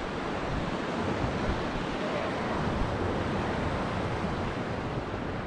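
Steady rush of wind buffeting the microphone over open water, with no distinct events.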